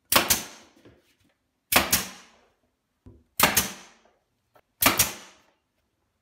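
RIDGID cordless nailer firing four times, about one and a half seconds apart, driving nails into wooden window trim; each shot is a sharp double crack.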